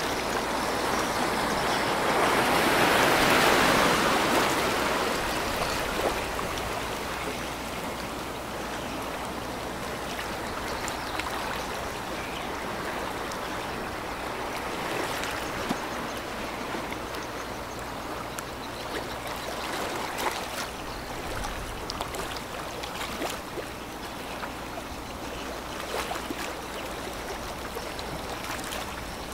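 Water washing and lapping, loudest about two to four seconds in, then steady, with scattered small splashes.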